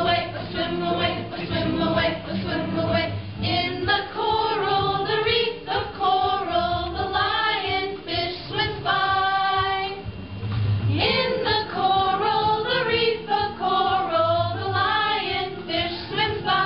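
Several voices singing a song together, with female voices prominent.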